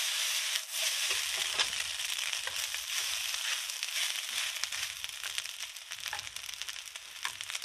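Fried rice sizzling and crackling steadily in a hot wok. From about a second in, a wooden spatula stirring it adds irregular scraping and knocking.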